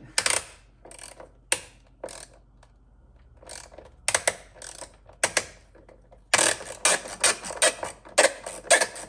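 Socket ratchet clicking in short spells as an 8 mm battery hold-down fastener is backed off, then a longer run of rapid ratcheting starting about six seconds in.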